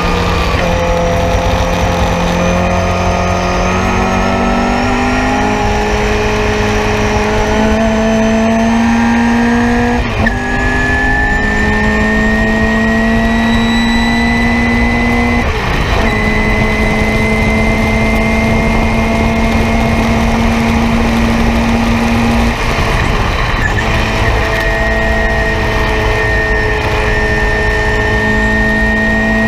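Nissan Sentra race car's four-cylinder engine heard from inside the cabin, pulling hard under full throttle with its pitch rising. The pitch drops about ten seconds in and again about sixteen seconds in as it shifts up, and it eases briefly a little after twenty seconds in before pulling on.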